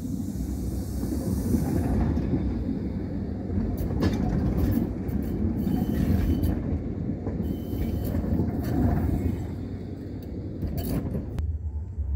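An articulated low-floor tram passing close by on the loop track: a steady rumble of wheels on rail with several sharp clicks, fading away near the end.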